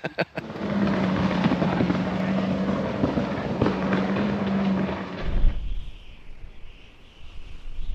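A steady motor hum holding one pitch under a dense rushing noise, which cuts off about five seconds in and leaves a low rumble.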